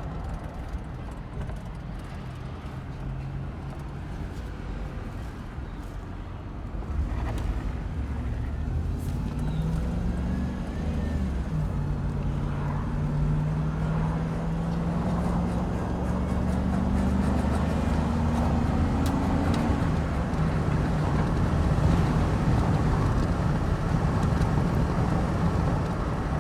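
GMC vehicle driving, engine and road noise: it picks up about seven seconds in, and the engine pitch climbs as it accelerates, dropping back once at a gear change before climbing again, then holds steadier near the end.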